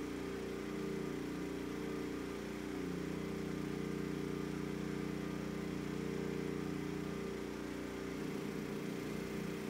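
Westinghouse WPRO8500 portable generator's single-cylinder engine running steadily under load, powering an electric oven through its preheat.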